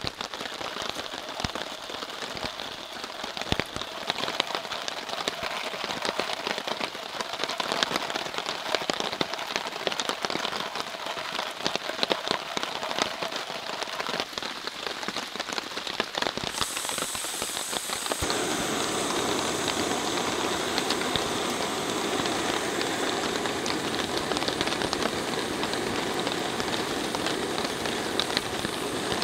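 Heavy rain falling on a tarp shelter, with many drops pattering. About two-thirds of the way through, a louder, steady hiss joins it: a gas canister camp stove burning under a coffee pot.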